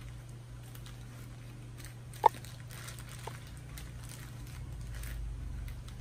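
A clear plastic shower cap crinkling and rustling faintly as it is adjusted over the hair, over a steady low hum. A single sharp, short click stands out a little over two seconds in, with a weaker one about a second later.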